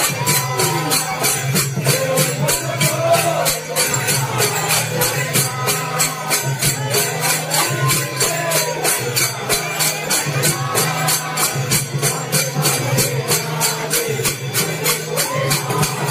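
Konkan folk music for a Sankasur dance: two-headed hand drums beating with a metallic jingle or cymbal stroke about three times a second, and men singing or chanting over it.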